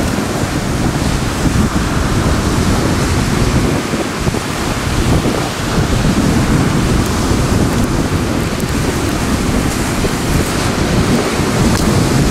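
Steady wind rumbling and buffeting on the microphone, over the wash of surf on a pebble beach.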